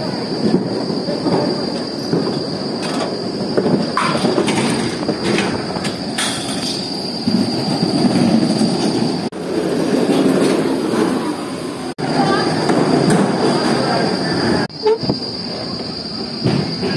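Luge cart's wheels rolling down a concrete track: a loud, continuous rumble with a constant high whine above it and scattered clicks and knocks.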